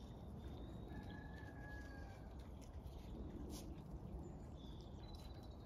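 Faint outdoor background of distant birds calling. Thin high whistled notes come and go, one held for about a second, over a steady low rumble.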